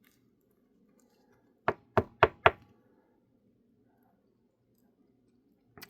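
Four quick knocks on a tabletop, about a quarter of a second apart, with quiet around them.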